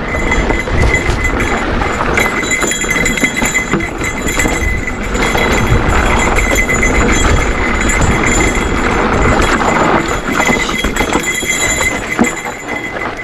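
Mountain bike clattering and rattling over a rough trail at speed, with wind buffeting the microphone and a steady high whine underneath.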